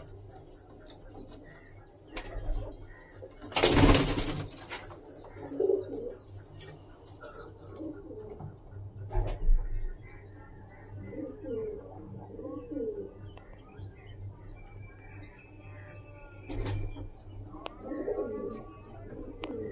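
Domestic teddy pigeons cooing in a loft in low, repeated phrases, with faint high chirps in the background. About four seconds in, a loud rustling burst lasts about a second.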